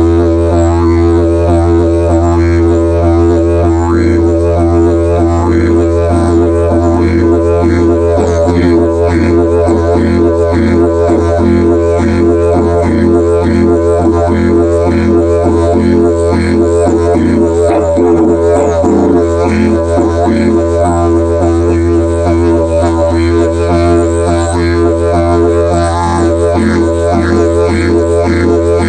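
Didgeridoo in the key of E, 50 inches long with a 3-inch bell, playing a steady low drone that never breaks, with rhythmic pulses of articulation repeating over it.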